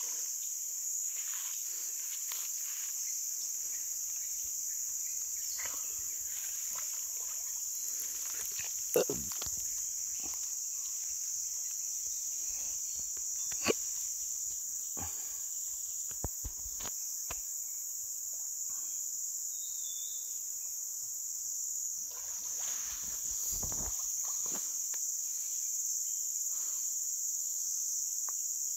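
Steady, high-pitched chorus of insects, with a few scattered knocks and clicks, the sharpest about nine and fourteen seconds in.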